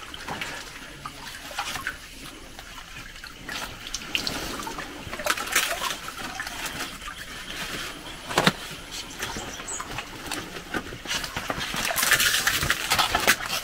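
Shallow swamp water splashing and trickling as a paddle is worked through it, in short uneven strokes, with a single sharp knock about eight seconds in and louder splashing near the end.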